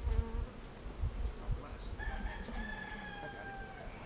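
A rooster crowing once: one long call starting about halfway through and holding for nearly two seconds before it stops.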